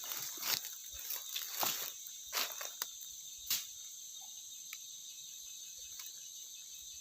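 Steady high-pitched chorus of crickets or other insects, with scattered short scuffs and knocks of footsteps on rock during the first three and a half seconds.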